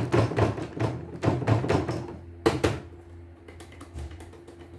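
A CNY E900 embroidery machine being shaken and knocked by hand to imitate jolts in shipping: a quick run of sharp thumps and rattles from its plastic body over the first few seconds, then lighter, fainter taps.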